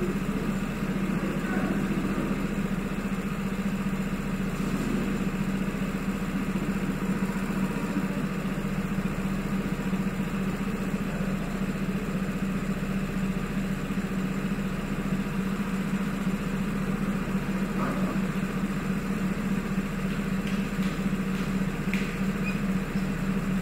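Go-kart engine idling steadily: one constant low hum that never revs up.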